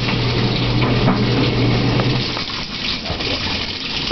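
Top-loading washing machine filling its tub at the start of a wash cycle: water gushing in steadily, with a low hum that stops about two seconds in.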